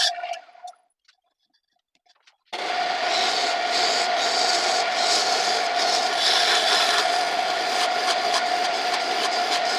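Homemade wood lathe running with a steady hum while a turning tool scrapes the spinning wood. The sound dies away about a second in, there are about a second and a half of near silence, then it comes back suddenly at full strength and carries on steadily.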